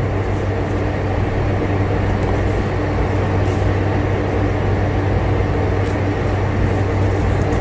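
Steady mechanical hum with a low drone and an even hiss throughout. A drawing compass swings an arc on paper, its lead giving a couple of faint scratches.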